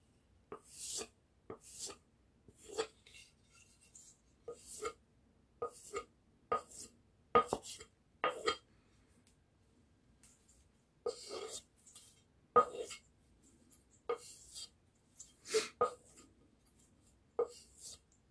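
A carving axe's edge being stropped on a leather strop: short rubbing strokes in uneven runs, with a pause in the middle.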